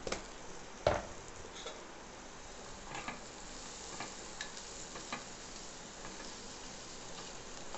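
Steel spoon stirring and scraping amaranth stems and onions in an aluminium pressure cooker over a gas flame, with a steady sizzle underneath. A sharp knock of the spoon against the pot comes about a second in, followed by lighter clinks every second or so.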